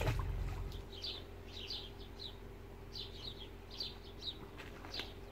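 Small songbirds chirping: clusters of short, high chirps repeating every half second to a second. A low rumble runs through the first second and then drops away.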